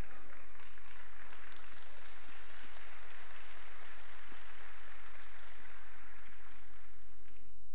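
Congregation applauding: a steady, even patter of many hands clapping that dies away near the end.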